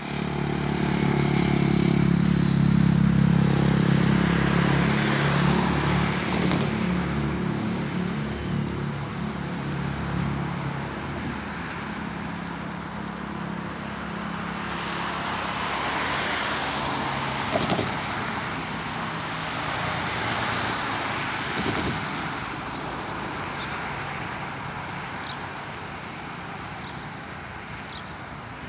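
Road traffic passing: a vehicle engine's low hum is loudest over the first few seconds and fades away, leaving steady traffic noise with a single knock partway through and a few faint high chirps near the end.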